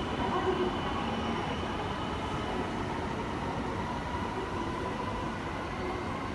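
Shinkansen train moving at a station platform, a steady running noise with a faint steady whine that eases slightly toward the end.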